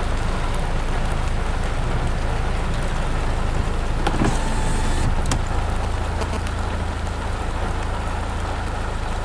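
A car's engine running steadily, with rain on the car: a continuous low hum under a steady hiss, and a few faint ticks.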